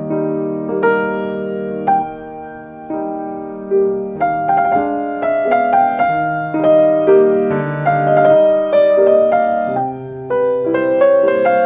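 Soft piano music: sustained chords under a slow melody, the notes struck and fading, growing busier from about four seconds in.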